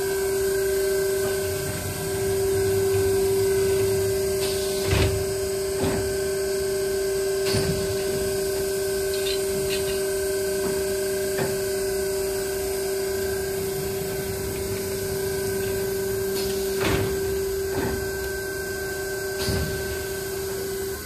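Alloyd Aergo 8 Duo rotary blister-sealing machine running: a steady hum with a clack from its mechanism every few seconds.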